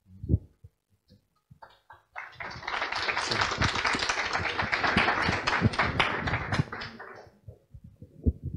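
Audience applauding, a dense patter of many hands that starts about two seconds in, lasts about five seconds and fades out. A few isolated knocks come before it.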